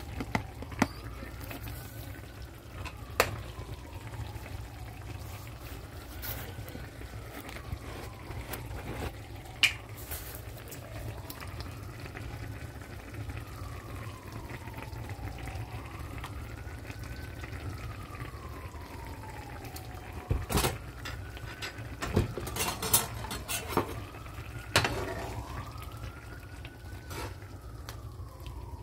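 Liquid pouring into a skillet of simmering chicken stew, with sharp clinks of bottles and a spoon against the pan, several in quick succession about two-thirds of the way through. A faint tone rises and falls every three to four seconds.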